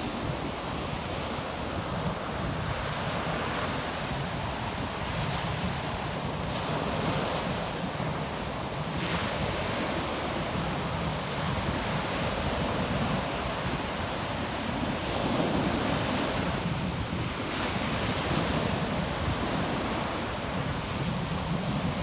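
Ocean surf breaking and washing up onto a sandy beach: a continuous rushing wash that swells louder as each wave breaks. There is low rumble from wind on the microphone.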